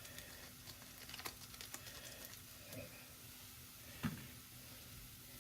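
Faint scattered ticks and light taps as a seasoning cube is crumbled into a pan of frying rice, with a single soft knock about four seconds in.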